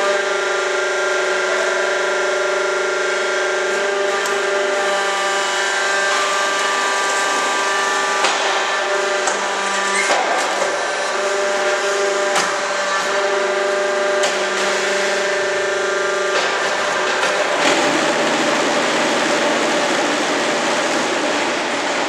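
Hydraulic concrete hollow block making machine running: a steady whine from the hydraulic power unit, with sharp metal knocks and clanks as the mould and press move. About three quarters of the way through, it turns to a harsher, noisier rattle.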